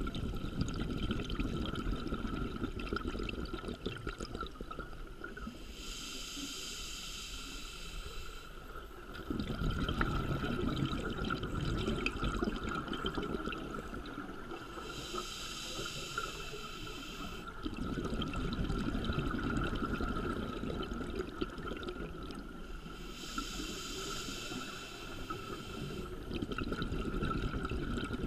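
Scuba diver breathing through a regulator underwater: long bubbling exhalations alternate with three hissing inhalations, one breath roughly every nine seconds. A steady faint tone runs underneath.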